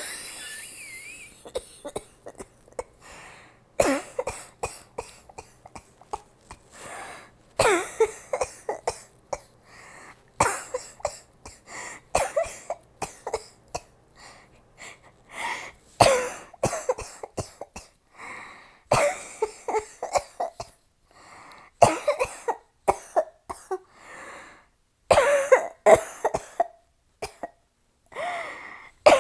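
A woman coughing repeatedly in fits of short coughs with brief pauses between them, from a cold and an asthma attack.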